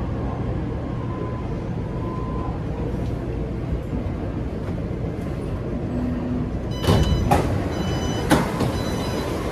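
Steady low rumble inside a Taipei Metro C381 train car standing at the platform. About seven seconds in the passenger doors slide open with sharp clunks and a brief ringing tone, and another clunk follows about a second later.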